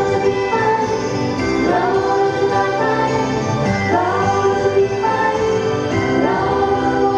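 Female idol pop group singing together into microphones over an amplified backing track, sustained sung notes with sliding pitch.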